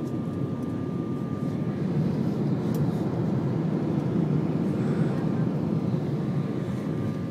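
Airliner cabin noise during the climb after takeoff: the jet engines and rushing airflow heard from inside the cabin as a steady low roar, with a faint steady whine in the first two seconds.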